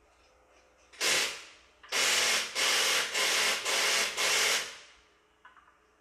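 Impact wrench on a wheel's lug nuts: one short burst about a second in, then five half-second bursts in quick succession.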